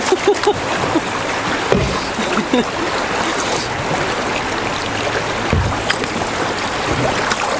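River water rushing over rocks in a small rapid, a steady hiss heard from inside a canoe running it, with a few short low thumps.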